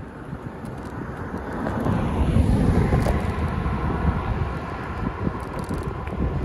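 A car overtaking a bicycle: engine and tyre noise swells to a peak about two and a half seconds in, then eases as the car pulls ahead. Wind buffets the microphone throughout.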